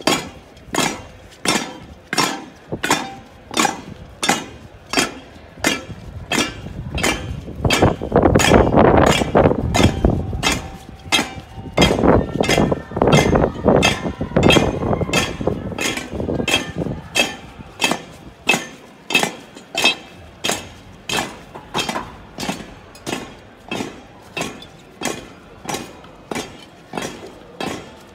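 Even, sharp knocks with a metallic clink, about three every two seconds, marking the slow step of a Holy Week procession float and its bearers. Between about eight and sixteen seconds in, a louder rushing, rustling noise rises under the knocks and then fades.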